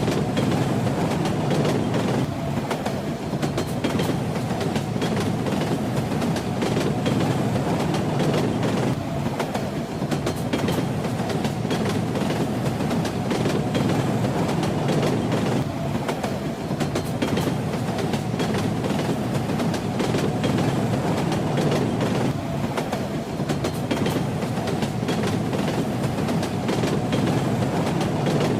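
Train running at a steady pace: a continuous low rumble with the rattling clatter of its wheels over the rails.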